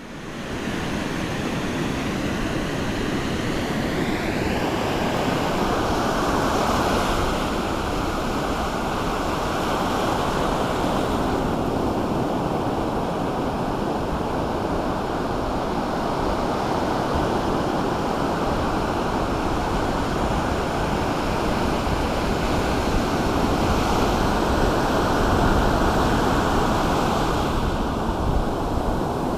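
Ocean surf washing continuously, fading in at the start and swelling slightly twice, about a quarter of the way in and again near the end.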